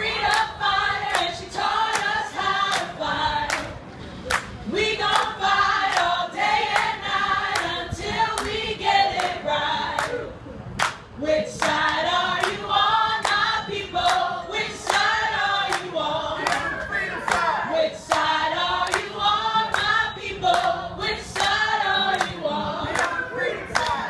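A group of voices singing together, with steady hand clapping about twice a second keeping time.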